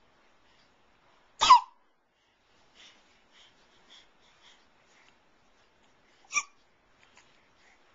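A 3.5-month-old baby hiccuping: two sharp hiccups about five seconds apart, the first about a second and a half in, the second near the end, with a few faint small sounds between them.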